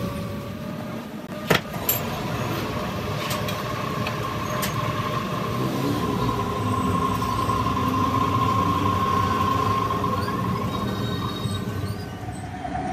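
Crankshaft grinding machine running with a crankshaft turning against the grinding wheel under coolant: a steady machine hum with a high whine that is strongest in the middle. A sharp click about one and a half seconds in.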